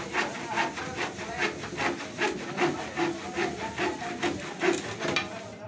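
Handsaw cutting through a wooden strip in steady back-and-forth strokes, about three a second, that stop at the very end.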